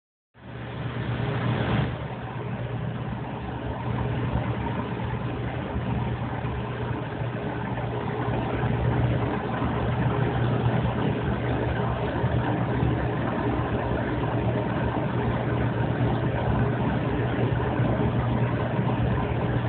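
Aquarium filter pump humming steadily, with a hiss of water running through the tank.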